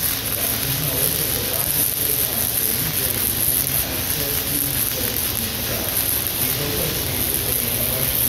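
Electric arc welding on a steel-tube hay ring frame: a steady, unbroken hiss of the welding arc.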